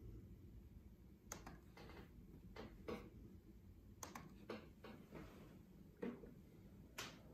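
Faint, irregular clicks of a ThinkPad laptop's touchpad and mouse buttons being pressed, about nine in all, over a low steady hum.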